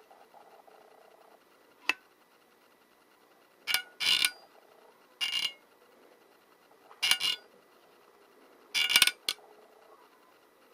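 Windscreen wiper blade being worked by hand: a sharp click, then four short, loud bursts of squeaking and scraping from the blade's pivot joint, which squeaks badly because it is dry and unlubricated.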